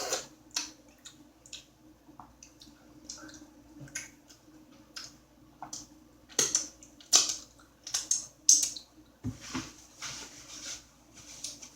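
Close-miked chewing and mouth noises: irregular wet smacks and clicks, with a few louder smacks past the middle and a low thump near the end.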